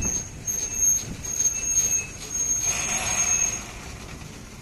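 Old-model Ashok Leyland tractor-trailer truck on the move, with a thin, high-pitched squeal coming and going over the rumble of the road.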